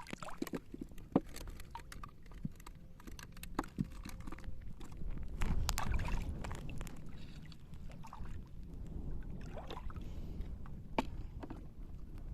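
Shallow seawater sloshing and splashing in irregular swishes, with scattered sharp clicks and knocks over a steady low rumble.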